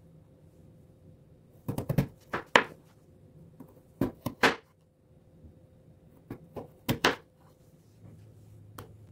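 A kitchen knife slicing through a peeled raw potato and striking a plastic cutting board: sharp knocks in three quick runs of several strokes, with a single knock near the end.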